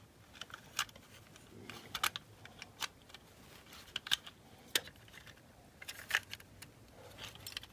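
Scattered small clicks and taps of a small screwdriver prying at the plastic base of a die-cast toy car, working it loose from the metal body.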